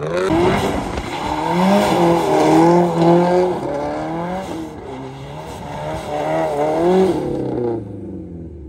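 Subaru WRX STI's turbocharged flat-four engine revving hard through a donut, its pitch held high and swinging up and down, with the tyres spinning on the asphalt. The engine note falls away near the end.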